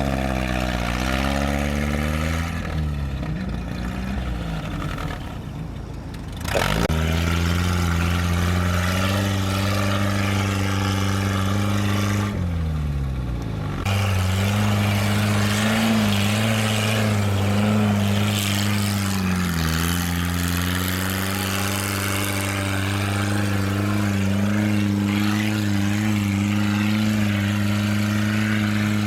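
Off-road 4x4's engine working hard in snow, revving under load. Its pitch sags and picks up again several times, with a sudden surge of power about six seconds in.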